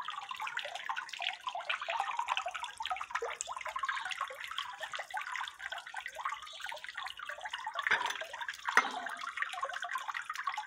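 Water trickling and splashing down the tiers of a small three-tier cement garden fountain, a steady sound of falling water. Two brief louder sounds come about eight and nine seconds in.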